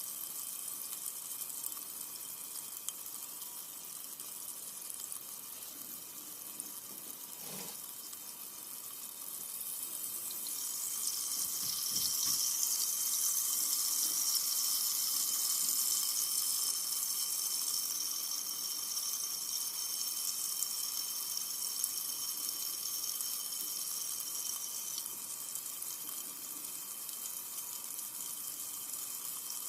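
Carbonated soda fizzing with a steady, high hiss. The hiss swells about ten seconds in and eases off gradually after that.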